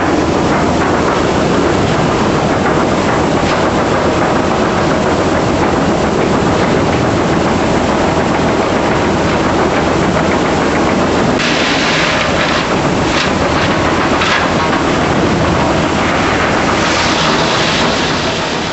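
Large 70-inch wastewood chipper running loud and steady. Bursts of harsher crackling come in about two-thirds of the way through, and the sound begins to die away at the very end.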